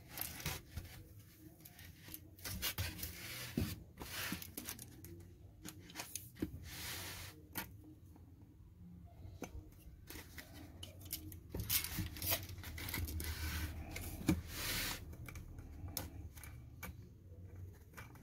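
Hands working a foam pool noodle with a tape measure and marker pen: irregular rubbing and scratching on the foam, coming and going in short bursts.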